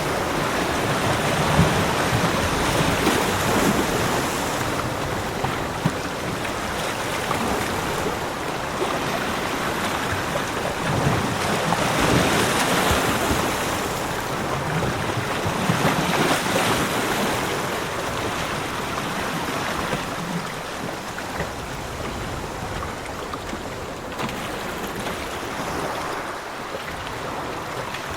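Ocean surf washing on a beach: a continuous rush of waves that swells several times and eases a little toward the end.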